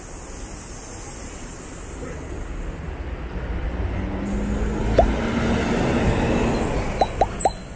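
City bus engines running as a second bus pulls in alongside, the engine noise growing steadily louder from about two seconds in. A sharp short chirp about five seconds in and three quick chirps near the end, likely brake squeal.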